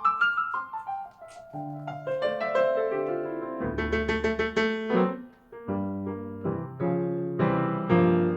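Jazz piano playing: a rising run leads into a passage of chords, thins to a brief near-pause about five seconds in, then resumes with repeated full chords.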